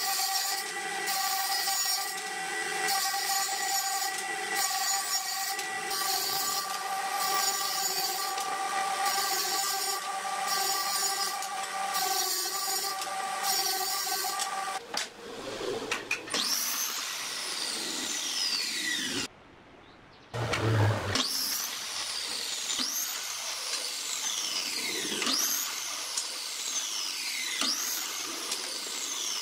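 Woodworking power tools working wood. First a steady machine whine with a hiss that pulses about once a second, then, from about halfway, a whine that falls in pitch and repeats every second or two, broken by a brief drop-out.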